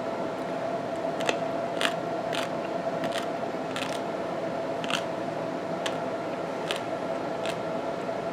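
A person chewing a bite of dill pickle: irregular short crisp clicks and crunches, roughly once a second, over a steady background hum.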